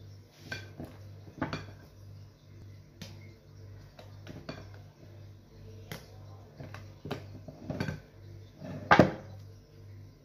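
A spoon and spatula knocking and scraping against a mixing bowl and cake pan as whipped cream is scooped out and spread: a scatter of irregular clinks, the loudest about nine seconds in.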